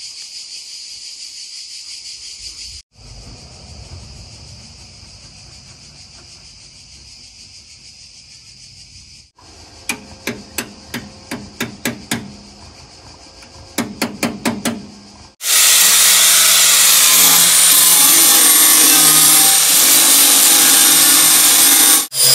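A steady high insect chorus. Then two quick runs of hammer blows on sheet metal, about three or four a second, each blow ringing briefly. Near the end a loud power tool runs with a thin whistle, working on the Volkswagen T3 van's body.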